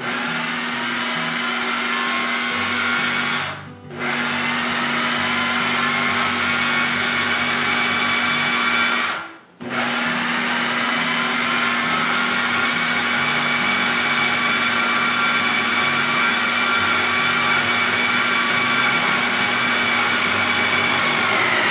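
Electric food processor motor running as it mixes cheese biscuit dough, with a steady hum and a high whine. It runs in three long pulses, stopping briefly about three and a half seconds in and again about nine and a half seconds in.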